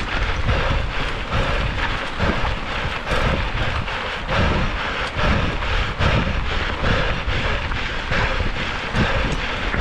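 Wind buffeting the microphone of a camera on a moving mountain bike, with knobby tyres crunching over loose gravel and many small clicks and rattles from the bikes.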